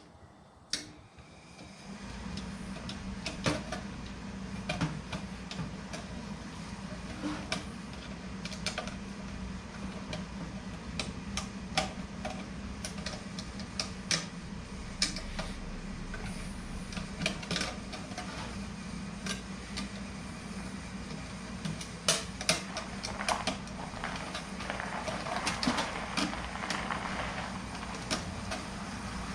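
Scattered clicks, knocks and light metal clinks of tools and parts as a computer power supply's metal case is taken apart, with more of them near the end. A steady low hum runs underneath from about two seconds in.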